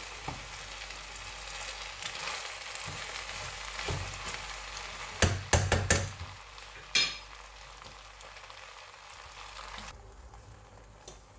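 Fried rice sizzling in a stainless steel pot as it is stirred with a wooden spoon. A few sharp knocks come about five to six seconds in, with one more about a second later. After that the sizzle goes quieter and fades near the end.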